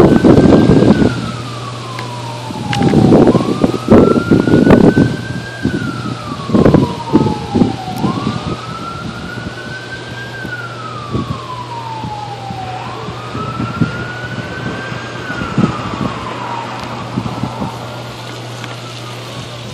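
An emergency-vehicle siren wails, rising quickly and falling slowly about every four to five seconds, over a steady low hum. Loud irregular crackling bursts from the arcing, burning transformer are heaviest in the first five seconds, then thin out.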